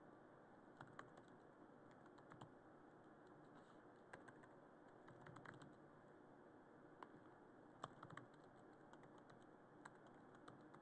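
Faint typing on a computer keyboard: irregular, scattered key clicks with short pauses between runs.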